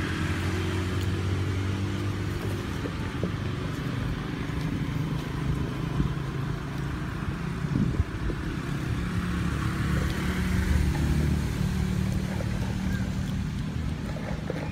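A motor vehicle's engine running at low revs: a steady low hum that swells slightly around the middle.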